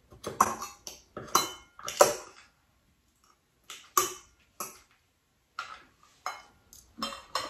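Metal fork and spoon clinking and scraping against ceramic bowls while serving food, about ten short irregular clinks with a brief pause about three seconds in.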